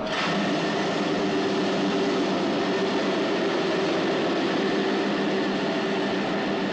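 Standard cast iron brake blocks of 1.3% phosphorus applied in full against a spinning railway wheel on a full-scale brake dynamometer, a simulated emergency stop from 110 km/h. The braking noise comes on suddenly at the start and then runs on steadily as a harsh rubbing noise over a hum of steady tones.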